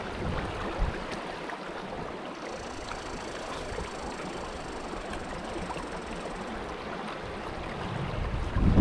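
Shallow brook flowing steadily over stones, a continuous watery rush, with a low rumble building near the end.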